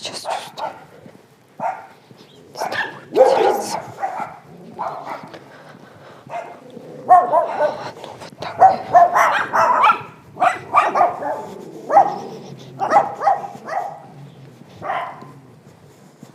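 Dogs barking repeatedly in short, separate barks: a few scattered ones at first, then a rapid run of barks in the middle and a last bark near the end.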